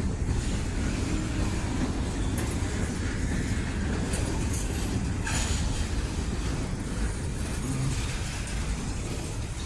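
Freight train cars rolling past on the rails: a steady noise heaviest in the low end, with a brief sharper sound about five seconds in.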